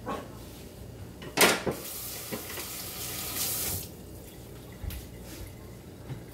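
A sharp knock, then water running from a kitchen tap for about two seconds before it stops abruptly.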